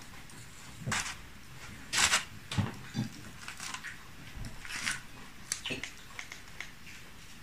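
A knife cutting a baked pumpkin shell into wedges over aluminium foil: five or so short crackly rustles in the first five seconds, then a few lighter clicks.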